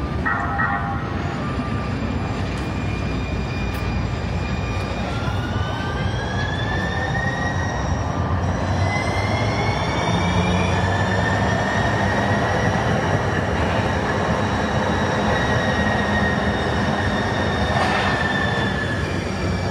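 Siemens S700 light-rail train pulling away, the whine of its traction motors rising in pitch as it gathers speed and then holding steady over the rumble of the wheels on the rails. A single click sounds near the end.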